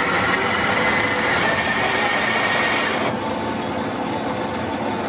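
Cafina bean-to-cup coffee machine grinding beans: a steady whirr with a high whine that stops about three seconds in, leaving the quieter hum of the machine's pump starting the brew.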